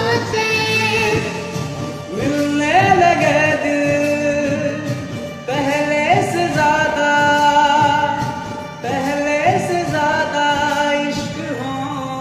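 Song with a lead singing voice over instrumental backing, sung in long, bending held notes, with a new phrase starting about every three seconds.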